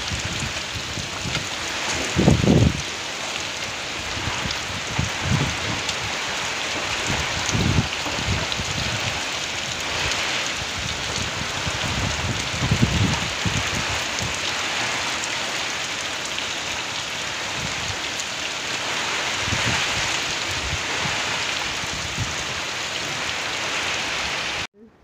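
Heavy typhoon rain pouring steadily, with a few brief low rumbles, the strongest about two seconds in. It cuts off suddenly just before the end.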